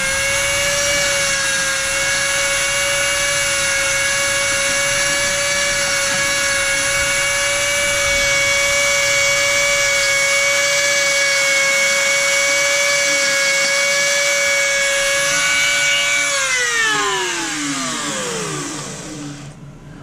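Dremel rotary tool running at a steady high whine as its small bit grinds at the eye inlay of a carved stone bird head. It is switched off about 16 seconds in, and its pitch falls away over about three seconds as it winds down.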